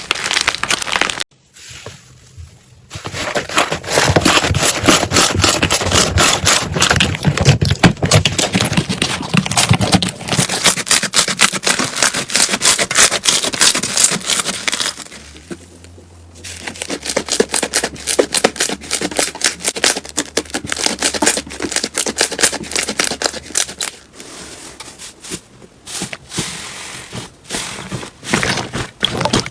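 Slime being squeezed and pressed by hand, giving dense, rapid crackling and popping clicks, with short pauses about a second and a half in and again about halfway through.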